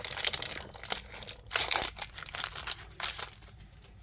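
Foil wrapper of a Pokémon TCG booster pack crinkling as it is handled and torn open, in dense crackly bursts that stop about three and a half seconds in.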